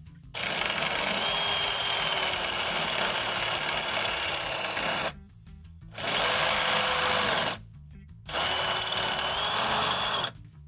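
Electric drill running in three bursts, a long one and then two shorter ones, drilling out a broken bolt; its motor whine shifts slightly in pitch during each run.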